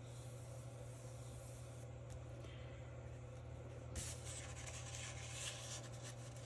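Dry rubbing and scratching on paper, louder for about a second and a half starting about four seconds in, over a steady low hum.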